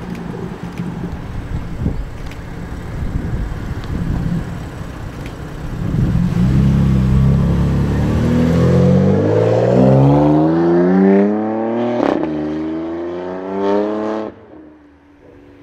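Straight-piped BMW M4's twin-turbo straight-six rumbling at low revs, then accelerating hard, its pitch rising steadily for several seconds. A sharp crack comes at a gear change, the pitch climbs again, then the sound cuts off near the end.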